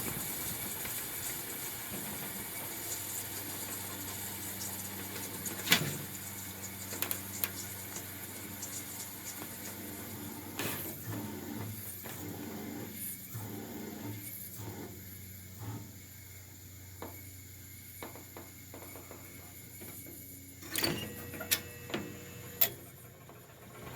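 Fan motor of a 1975 Westinghouse Custom 20 dehumidifier running with a steady low hum, the compressor silent after cutting out from short-cycling. A few sharp clicks and knocks come through, several of them near the end.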